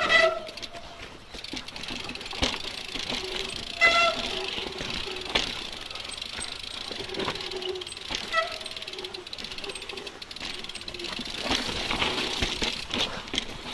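Giant Reign full-suspension mountain bike ridden over bumpy sandstone rock: tyre noise with frequent knocks and rattles from the bike as it drops over rock edges.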